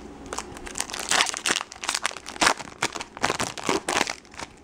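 Foil wrapper of a 2012 Bowman Draft Picks & Prospects card pack crinkling as hands pull it open, a quick run of crackles starting just after the beginning and stopping shortly before the end.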